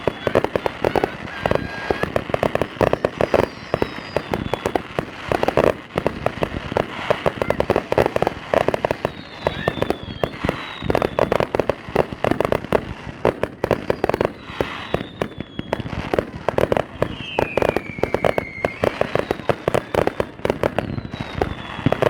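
Fireworks display: rapid crackling and repeated volleys of bangs throughout, with several short whistles falling in pitch.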